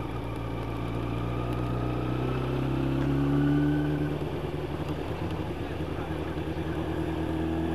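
Yamaha YZF 1000cc inline-four motorcycle engine running on the road under the rider. The engine note rises over the first few seconds, drops back just after four seconds in, then holds steady.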